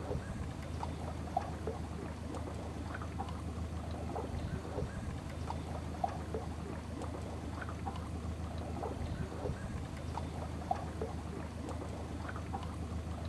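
Small boat's motor running with a steady low hum, while water splashes and laps against the hull in many small irregular slaps.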